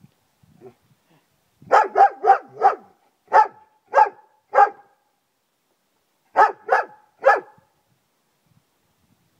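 German Shepherd barking loudly: a quick run of four barks about two seconds in, three more a little more spaced out, then after a pause of nearly two seconds a final group of three.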